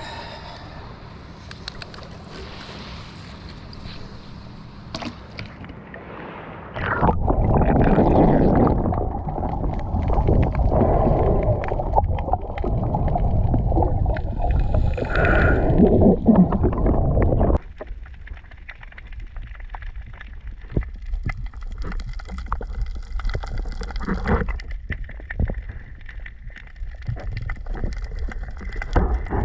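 Sea water sloshing and gurgling around the microphone. About seven seconds in it turns much louder and rumbling, then drops away sharply some ten seconds later to a quieter wash with many scattered clicks.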